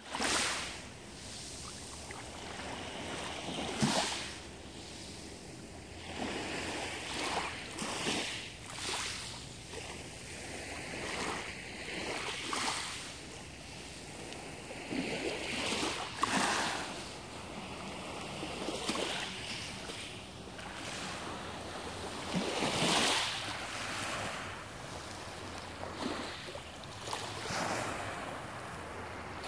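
Small waves lapping and washing onto a pebble beach from a calm sea, each wash swelling and fading at irregular intervals of a few seconds.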